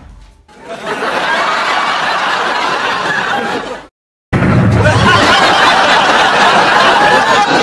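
Audience laughter from a laugh track, many voices at once. It breaks off for a moment of silence about four seconds in, then resumes just as loud.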